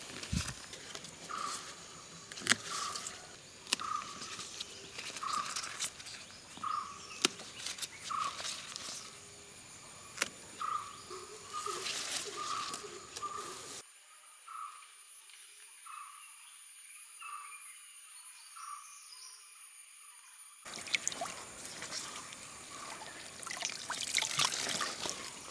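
Hands picking colocasia leaves: stalks snapping and leaves rustling into a woven basket, under a short chirp that repeats about once a second. In the last few seconds the leaves are swished in shallow running water, with splashing and trickling.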